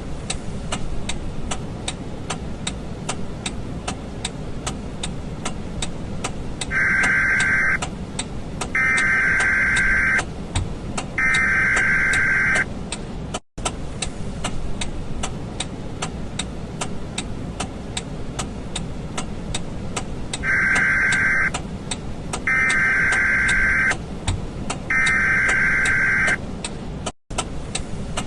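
Regular ticking, a few ticks a second, over a steady low rumble, with a run of three long beeps at one pitch. The pattern plays twice, like a looped sound effect.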